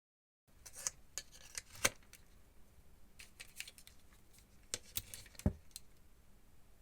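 Faint, scattered clicks and light knocks, as of small hard objects being handled, with the sharpest knocks about two seconds and five and a half seconds in.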